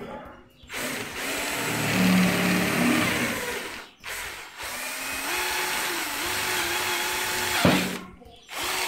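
Worx SwitchDriver cordless drill, with a hex-shank chuck adapter and wood bit, boring through a wooden block. The motor runs in three bursts, the first pulling down in pitch as the bit cuts. A sharp knock comes near the end of the second burst and is the loudest moment.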